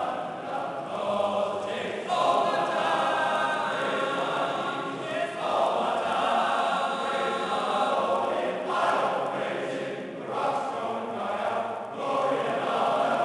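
Singing voice inside a stone church, in sustained phrases with short breaks between them.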